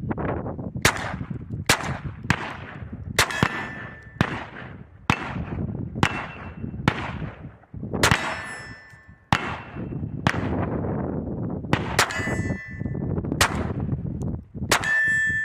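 Taurus TX22 .22 LR semi-automatic pistol fired again and again, about fourteen shots at an unhurried, uneven pace. Most shots are followed by a short metallic clang that rings on.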